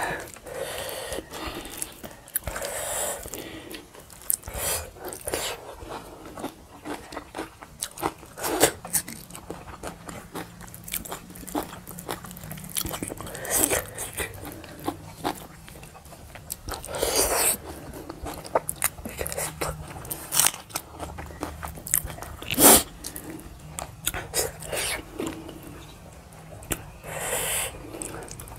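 Two people eating a meal of rice, pork and chicken gizzard by hand: wet chewing and biting with irregular sharp mouth clicks and smacks.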